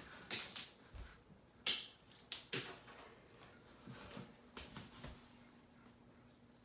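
A few scattered short clicks and knocks, the sharpest about a second and a half in, over a faint steady hum.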